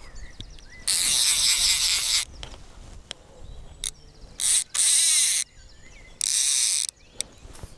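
A fly reel's click-and-pawl ratchet buzzing in about five bursts, the longest over a second, as line is wound or pulled through it.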